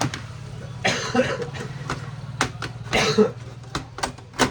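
Sharp clicks and snaps of a laptop's plastic case being pried apart by hand, with two short rasping bursts about a second in and three seconds in, over a low steady hum.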